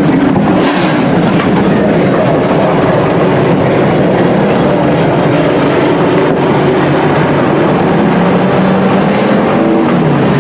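Engines of several dirt-track racing trucks running together on the oval, loud and steady, with no clear rise or fall in pitch.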